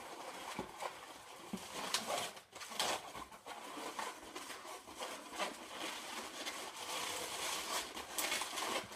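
Inflated 350 latex modelling balloon being squeezed and twisted by hand into pinch twists: steady rubbing and creaking of the latex, with a few sharp squeaks.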